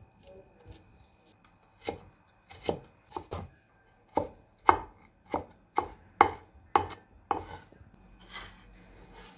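Chinese cleaver chopping carrot on a wooden cutting board: about a dozen sharp chops, roughly two a second, after a quiet start, dicing thin carrot strips into small cubes. Near the end comes a softer scrape.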